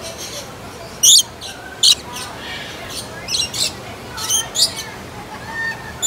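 Lorikeets calling: two loud, shrill screeches about one and two seconds in, followed by clusters of shorter, high chirps.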